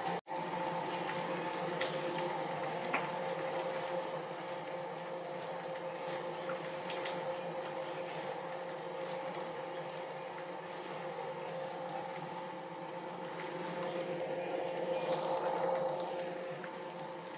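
Steady rain falling on foliage, with a few faint drips and a constant low hum under the rain. The sound cuts out for an instant just after the start.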